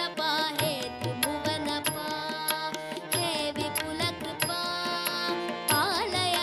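Indian classical-style devotional music: an ornamented melody with wavering, gliding notes over steady hand-drum percussion.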